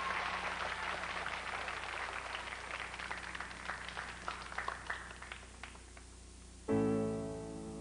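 Audience applause that thins out and fades over about six seconds, followed near the end by a strummed guitar chord.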